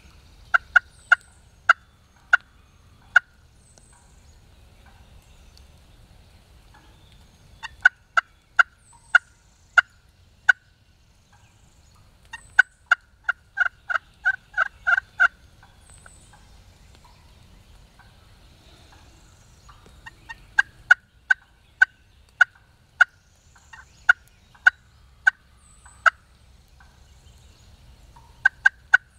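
Turkey yelping: runs of short, sharp notes, about six to a dozen per run with pauses between. The third run is the fastest and loudest.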